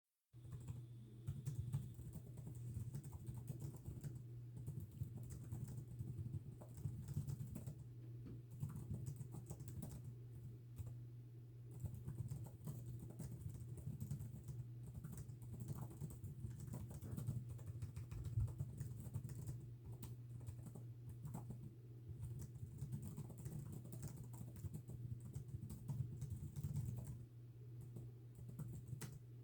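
Continuous typing on a computer keyboard: a dense, uneven stream of key clicks with a brief lull near the end, over a steady low hum.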